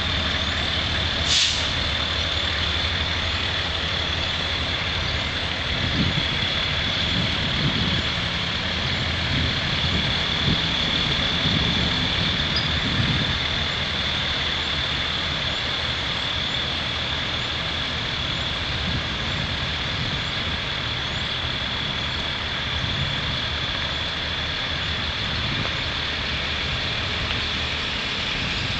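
Engines of a slow-moving vehicle convoy running at low speed: a steady low rumble with a constant high whine over it. There is a short hiss about a second and a half in, and some heavier swells of engine sound in the middle.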